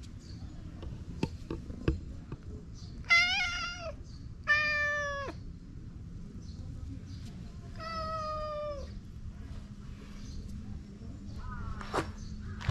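Cat meowing three times: two calls in quick succession, then a third a few seconds later, each lasting under a second.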